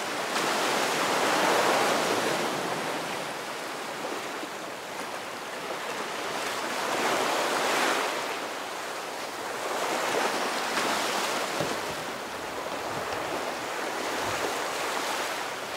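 Ocean surf washing in and drawing back, rising and falling in slow swells every few seconds.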